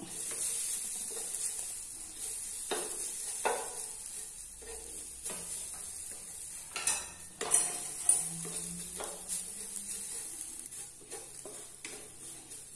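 Wooden spatula stirring and scraping grated coconut as it roasts in a black kadhai on a gas stove, with a faint steady high hiss and scattered knocks of the spatula against the pan, two sharper ones a little past the middle.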